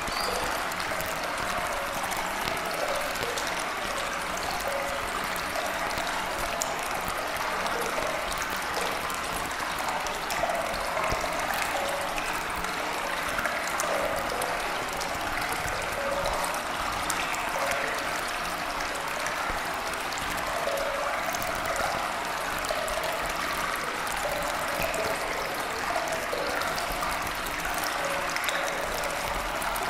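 Steady running water like a flowing stream, an even rushing and trickling with no breaks or sudden sounds.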